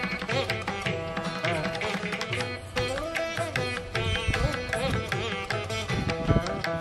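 Instrumental background music in an Indian classical style: a plucked string melody with sliding, bending notes over hand-drum percussion.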